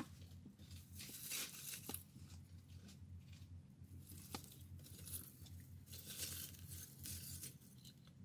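Faint irregular crackling and rustling of dry twigs and grass as they are handled and set alight with a candle flame.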